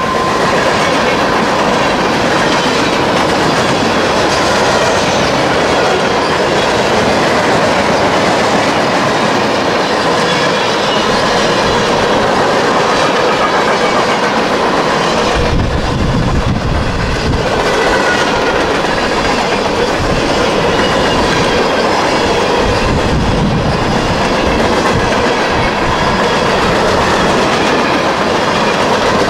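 Freight train cars rolling past at close range: steady wheel-on-rail noise with clickety-clack over the rail joints. A deeper rumble joins about halfway through.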